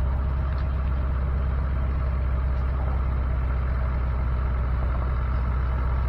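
A vehicle engine running at a steady speed, a low even drone that does not change.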